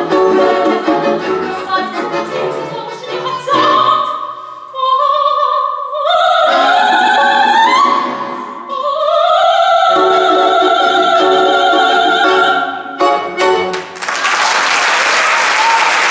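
Female classical voice singing a Russian romance over a balalaika ensemble, climbing to a long held high note before the final strummed chords. Applause breaks out about fourteen seconds in.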